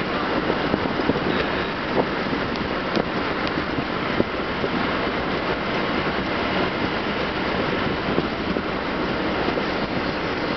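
Car driving at highway speed, heard from inside the cabin: a steady rush of road and wind noise, with wind buffeting the microphone and a few faint small knocks.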